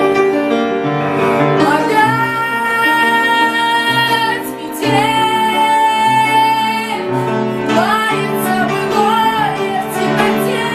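A woman singing a slow song over instrumental accompaniment with piano, holding two long high notes with vibrato.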